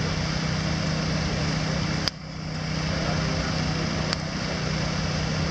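Two large electric floor fans blowing into a big firewood fire: a steady rush of air and flame over a low motor hum. A couple of sharp pops cut through, the first about two seconds in, after which the rush dips briefly and builds back.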